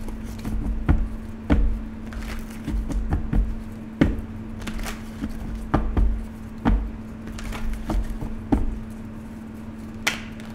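A tarot deck being shuffled by hand: irregular soft slaps and clicks of cards dropping onto each other, some with a low thud of the hands or deck against the table, ending with cards being laid down.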